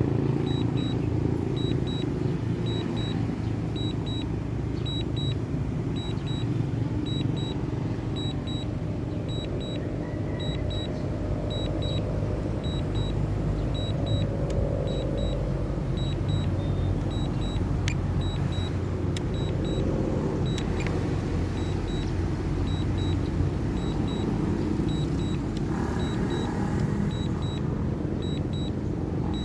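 Steady low wind rumble buffeting the microphone. Over it, faint high double beeps repeat a little faster than once a second: the DJI Mini 2 remote controller's alert during return-to-home.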